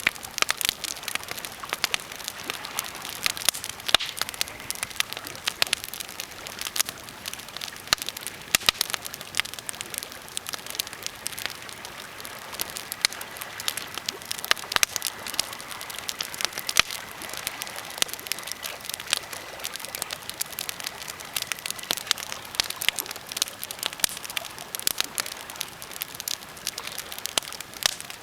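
Birch and pine campfire crackling steadily, with dense, irregular pops and snaps of burning wood.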